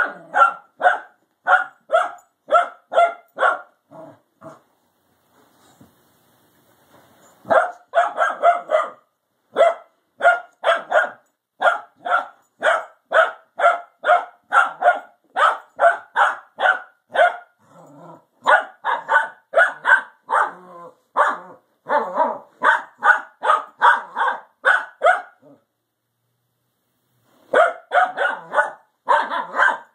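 A dog barking sharply over and over while playing with another dog, about two to three barks a second in long runs, falling silent twice for a couple of seconds.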